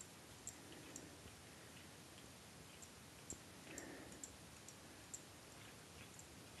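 Cat licking a man's head, grooming his hair: faint, irregular clicks of the tongue, about one or two a second.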